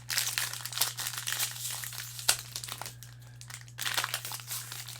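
Wrapper of a 2021 Bowman Jumbo baseball card pack crinkling and crackling in the hands as it is worked at and pulled to tear it open, the pack being hard to open. The crinkling pauses for about a second past the halfway mark, then starts again.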